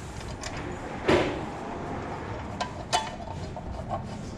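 Metal hardware and tools being handled while a battery box is bolted onto a small ATV: a loud clunk about a second in, a sharp click just before three seconds in, and a few lighter taps.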